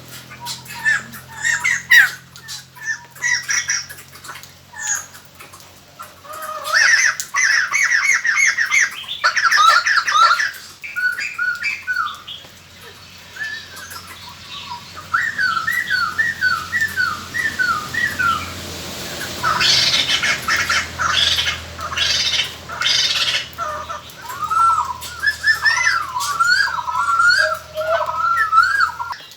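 Laughingthrushes giving harsh, chattering, squawking calls in repeated bursts of quick, sliding notes. This is a lure call used to draw wild birds in.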